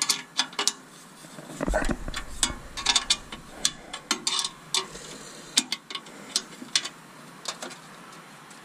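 Irregular sharp mechanical clicks and rattles, several a second at first and thinning out later, with a dull thump just under two seconds in.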